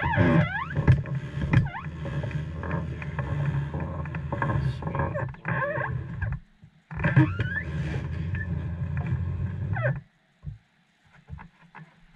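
SeaStar hydraulic steering helm being turned by hand while its fluid is topped off from a reservoir: the helm pump whirs and whines, the pitch rising and falling as the wheel speeds up and slows. It breaks off briefly about halfway through, runs again, then stops abruptly, leaving a few light clicks.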